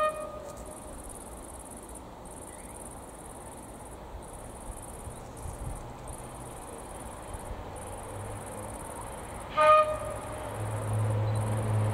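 Insects chirping steadily in a high, pulsing buzz. About ten seconds in comes one short blast on a diesel locomotive's horn, the loudest sound. A low engine rumble then swells as the locomotive approaches.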